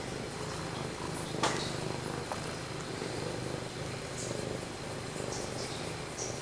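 A domestic cat purring steadily, very close to the microphone. A single sharp click comes about one and a half seconds in.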